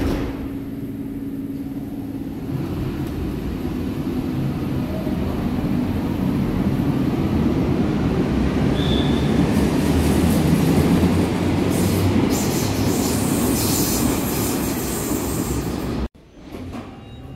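Berlin U-Bahn F-series train pulling out of the platform, its running noise building into a loud rolling rumble as it accelerates past, with a brief high squeal about nine seconds in. The sound cuts off suddenly near the end.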